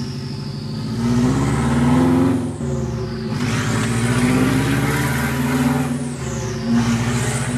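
Subaru WRX's turbocharged flat-four engine revved through its exhaust: two held revs that each drop back, then a short blip near the end, with a high whine rising and falling above the engine note.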